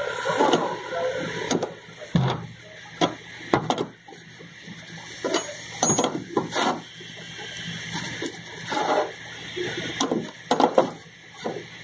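Metal ring spanner clicking and clinking on a nut as the nut is tightened onto its bolt, in many irregular sharp clicks.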